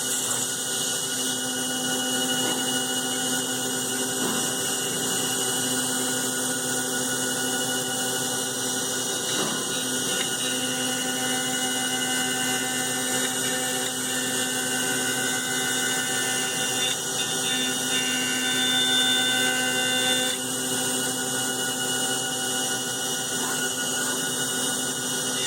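Mazak CNC mill spindle running at a steady speed while the cutter mills Delrin dry, without coolant, giving a constant multi-toned whine over a rushing hiss. A few of the tones shift briefly about two-thirds of the way through.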